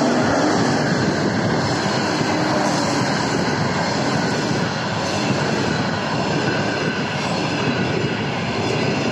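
Passenger train passing close by at speed: a TEP70BS diesel locomotive going by at first, then a long run of passenger coaches, with a loud, steady rush of wheels on rails.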